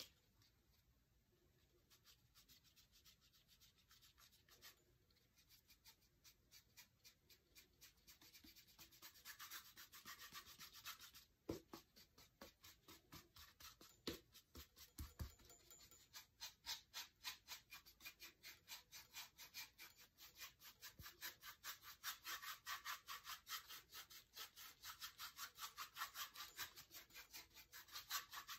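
Paintbrush bristles scrubbing against a lamp base in quick back-and-forth strokes, dry-brushing white paint onto it: faint at first, becoming denser and louder from about eight seconds in. A soft knock about eleven seconds in.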